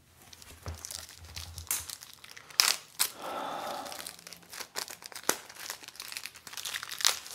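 Crinkling and tearing of a trading-card pack wrapper being handled and torn open, with scattered sharp crackles and a longer rustling tear about three seconds in.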